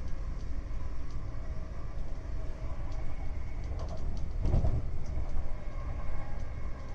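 Inside a Class 350 Desiro electric multiple unit running between stations: a steady low rumble of wheels on rail with a faint steady whine above it. About four and a half seconds in there is a louder surge of rumble and clatter.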